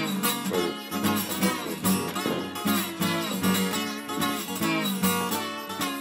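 Background music: plucked and strummed guitar in a blues/country style, with a steady pulse.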